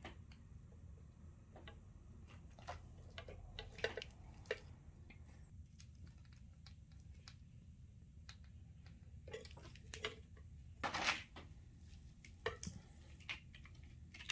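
Scattered light clicks and taps from hand work on a TV's LED backlight strips and plastic reflector sheet, over a faint steady low hum. A short rustle about eleven seconds in.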